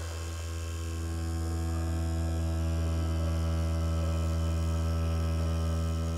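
Cartridge tattoo machine with a small liner needle running at about 7.2 volts while it lines synthetic practice skin, giving a steady low electric buzz that grows slightly louder.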